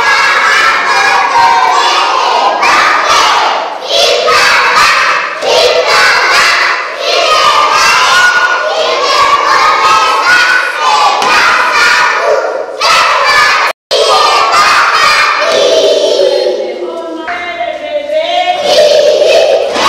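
A class of young children chanting loudly together in unison, many high voices at once. The sound cuts out for a split second a little past the middle, dips a few seconds later, then swells again near the end.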